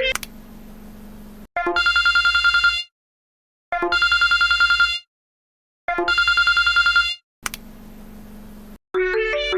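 Telephone ringing: three bursts of a fast, even trill on one steady pitch, each a little over a second long and about a second apart. A fainter steady hum comes before the first ring and after the last.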